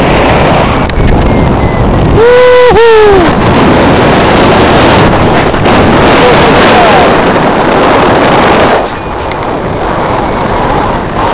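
Airflow of paragliding flight buffeting the pilot's camera microphone, a loud, constant rushing. About two seconds in, a short two-part whoop of a voice rises over it and falls away.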